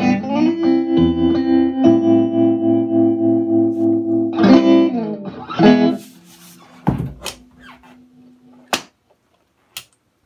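Vox AC-15 valve amp singing by itself, a sustained overtone-rich drone that steps between pitches like throat singing: the sign of a microphonic output tube. It dies away about six seconds in, and a few sharp clicks follow near the end.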